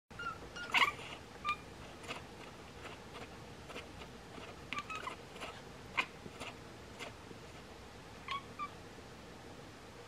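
Bengal cat chattering at birds through a window: short, clipped 'ek-ek' chirps in scattered bursts, a cluster near the start, more around five and six seconds, and a last pair near the end.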